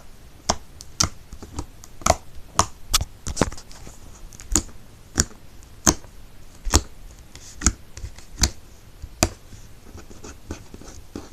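Fingers poking slime, each poke making a sharp, wet pop or click. The pops come about two a second at first, slow to about one a second, and grow faint near the end.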